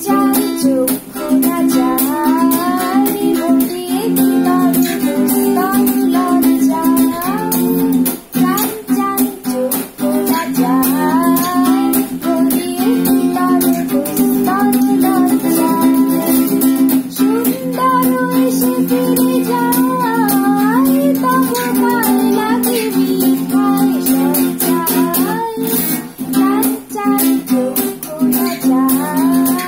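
Acoustic guitar strummed steadily in chords, with a woman singing a song over it.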